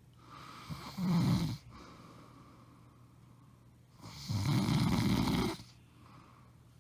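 A woman snoring in her sleep: two loud snores, one about a second in and a longer one about three seconds later, with quieter breathing between them.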